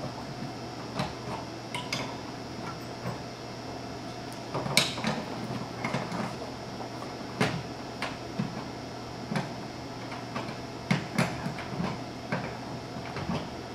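Irregular metallic clicks and clinks of an open-end wrench on the brass quick-connect fittings of a mini-split outdoor unit as the refrigerant line-set nuts are turned down, over a steady low hum. The sharpest clink comes about five seconds in.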